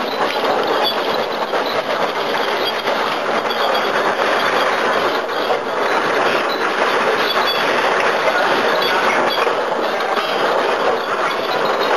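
Automatic ink paste filling machine running: a steady mechanical clatter of many small clicks and knocks over a constant machine noise.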